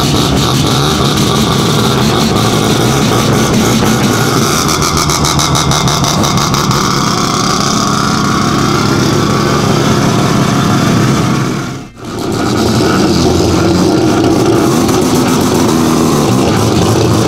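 Bridgeported Mazda 13B rotary race car engines running loudly, with the revs rising and falling a little. The sound breaks off for a moment about twelve seconds in, then the engine sound resumes.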